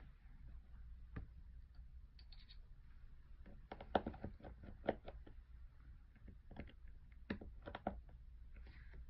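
Faint, scattered small clicks and taps of tiny tools and parts on an iPhone 7 display assembly as its small metal plate is taken off, the sharpest about four and five seconds in and a quick cluster near the end.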